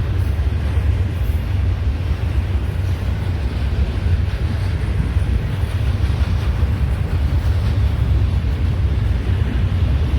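Intermodal freight train rolling past, a steady low rumble with no let-up.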